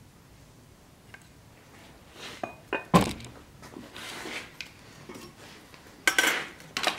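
A knife and workshop tools being handled and set down on a wooden board: a few knocks and clinks, the sharpest about three seconds in, then a short clatter near the end.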